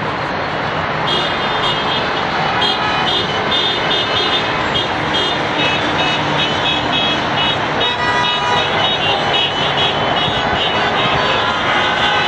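Steady din of city traffic and crowds, with many short, high-pitched toots overlapping from about a second in.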